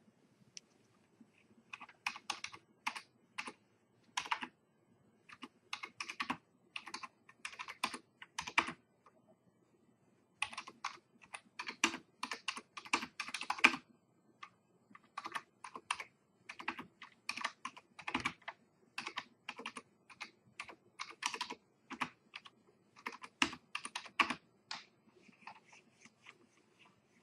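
Typing on a computer keyboard: quick runs of keystrokes broken by short pauses, the longest about a second long roughly a third of the way in.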